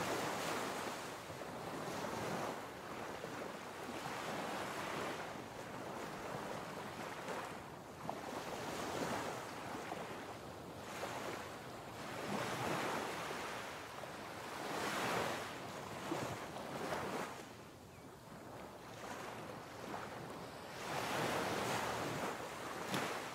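Sea waves washing, a rushing noise that swells and ebbs every two to three seconds, with some wind.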